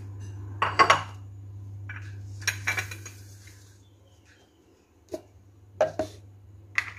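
Dishes and a stainless steel cooking pot being moved about on a countertop, clinking and knocking in a handful of separate knocks, the loudest near the start, over a steady low hum.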